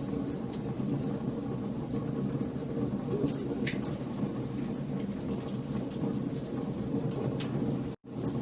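Wood fire burning in a fireplace: a steady low rumble of flames with many sharp crackles and pops at irregular moments. The sound cuts out for an instant near the end.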